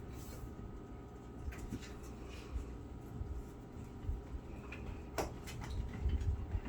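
Light clicks and taps of hands handling a makeup palette and its packaging close to the microphone, with one sharper click about five seconds in over a low handling rumble.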